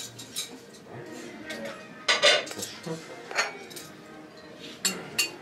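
Cutlery and crockery clinking and clattering on tables, with the loudest clatter about two seconds in and further clinks near the end, over a low murmur of diners' voices.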